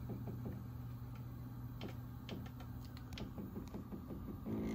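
SWF MAS-12 multi-needle embroidery machine standing by with a steady low hum. Over it come runs of quick, regular ticking, about seven a second, at the start and again from about three seconds in, and a few sharp clicks in between.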